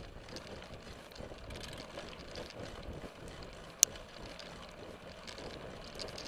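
Mountain bike rolling over a rough dirt trail: a steady rattle of tyres and frame, with some wind on the microphone. A single sharp click comes a little under four seconds in.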